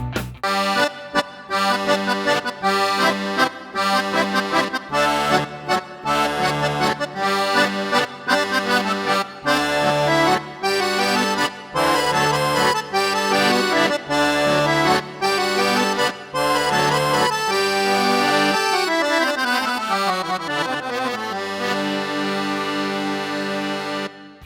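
Yamaha PSR-SX900 arranger keyboard playing a tune on an accordion voice over a pulsing bass accompaniment, with a long falling run of notes near the end.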